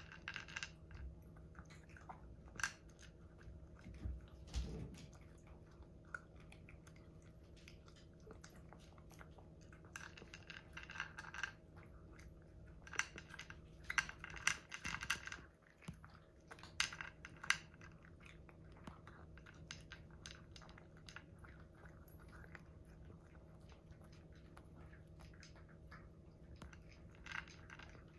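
A long-haired Munchkin cat crunching dry kibble, in spells of rapid crunches a second or two long with quieter pauses between.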